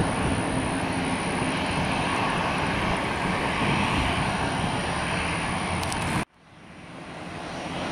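Beechcraft Super King Air 200's twin turboprop engines running steadily as the aircraft lands, a broad, even engine and propeller noise. About six seconds in the sound cuts off abruptly, then fades gradually back in.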